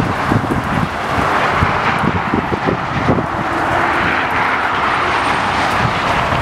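Highway traffic passing at speed: a steady tyre-and-engine hiss that swells and eases as cars go by, with wind buffeting the microphone.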